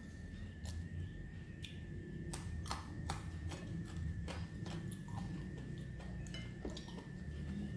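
A person chewing a mouthful of food close to the microphone: irregular wet smacking clicks, several a second, over a low steady hum.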